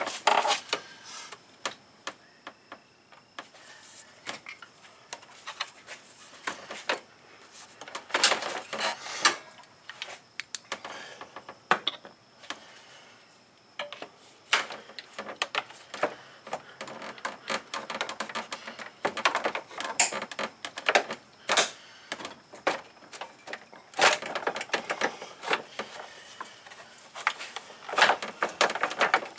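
Scattered clicks and clattering knocks of a screwdriver and hands against the hard plastic cooling-fan shroud and radiator support as the fan assembly is worked loose and lifted. The clatter comes in bunches, thickest about 8 seconds in, around 20 seconds and near the end.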